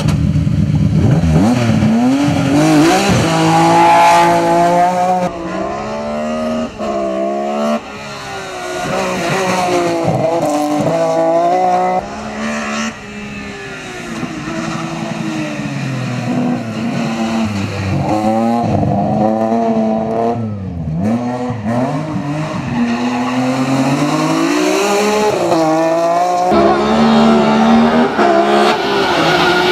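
BMW E36 race car's engine at full throttle, its pitch repeatedly climbing and dropping back as it shifts up and lifts off between corners, with tyres squealing as the car slides.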